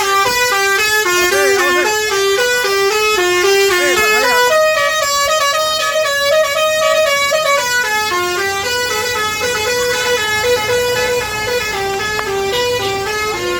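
A bus's telolet basuri horn, a set of tuned air horns playing a continuous fast melody of short stepped notes. The tune holds a higher, longer note from about 4.5 to 8 seconds in, then goes back to quick notes.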